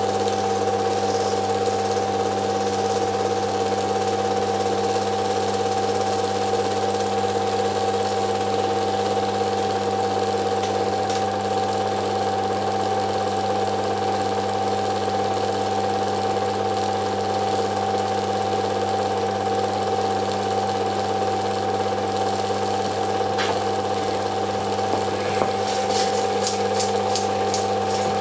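Film projector running, a steady mechanical hum and whine with an even rattle of the film mechanism. Near the end comes a quick run of clicks.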